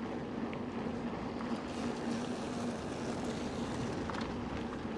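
Wind on the microphone and tyre noise from a bicycle being ridden, with a steady low hum that stops about halfway through.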